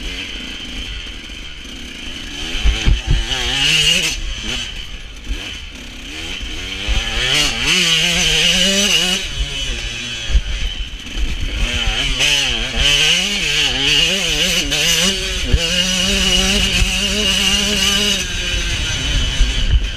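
A KTM 125 SX two-stroke motocross engine revving hard, its pitch rising and dropping again and again as the rider works the throttle and gears, then holding steadier near the end. A constant low wind rumble on the microphone and a few sharp knocks sit under it.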